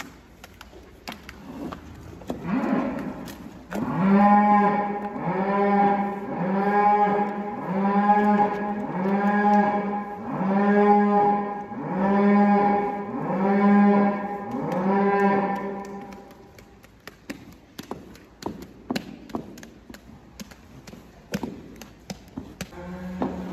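A cow mooing over and over, about a dozen short calls roughly one a second, starting about four seconds in and stopping around three-quarters through. Light clicks and taps of a manure scraper on the barn's concrete run underneath.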